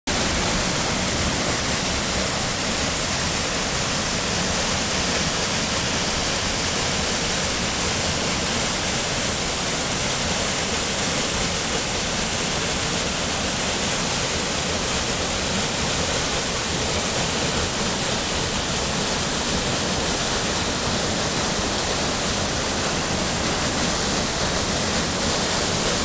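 Poulanass Waterfall, a narrow cascade pouring down a rock gorge, rushing steadily: an even, unchanging noise of falling water.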